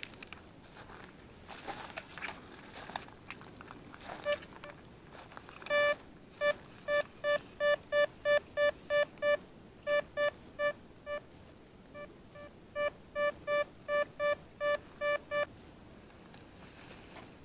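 Detech Chaser metal detector giving repeated short beeps at one steady pitch, about three a second, with a brief pause partway through: its audio alert for a metal target under the coil. Before the beeping, footsteps rustling through dry forest litter; near the end, hands scraping through the leaf litter.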